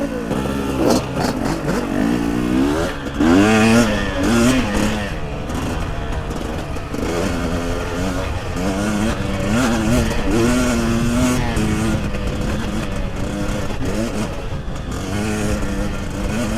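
KTM 300 EXC two-stroke single-cylinder engine, new and being run in, revving up and down repeatedly as the bike rides along a dirt trail.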